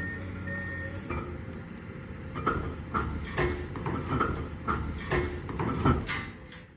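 Demolition machinery at work tearing down a tower: a steady low engine rumble with irregular knocks and crunches, about one or two a second, fading near the end.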